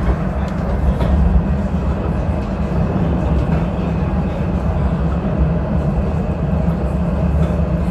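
Dubai Tram running along the track, heard from inside the passenger cabin as a steady low rumble of wheels and drive.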